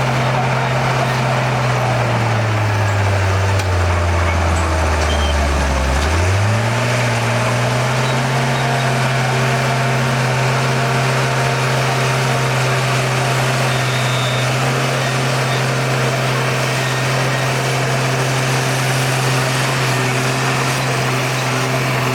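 Heavy construction machine's diesel engine running steadily. About two seconds in, its pitch sinks slowly for some four seconds, then climbs quickly back and holds steady.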